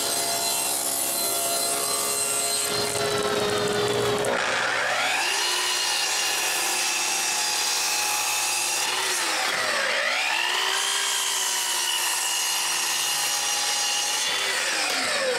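Power saws cutting wood. First a table saw runs with a steady tone and stops about four seconds in. Then a Festool sliding miter saw's motor whines up to speed and runs through a cut. It dips and spins up again near the middle for a second cut, then winds down near the end.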